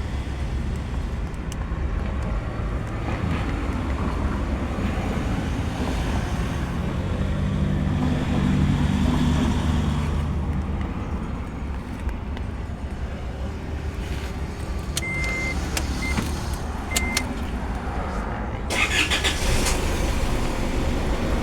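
Isuzu Mu-X diesel SUV's engine running with road rumble, its note rising and growing louder in the middle as it pulls. Three short electronic beeps sound near the end.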